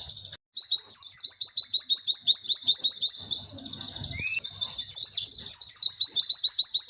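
White-eye (pleci) singing a fast 'witwit' song: a long run of quick, evenly repeated high chirps, about eight a second. It breaks off briefly at the start and dips once past the middle before the run picks up again.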